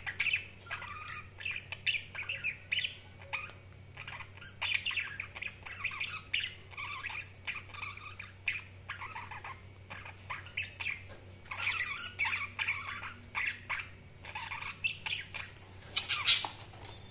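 Budgerigars chirping and warbling in quick, irregular runs of short notes, with a loud harsh squawk near the end.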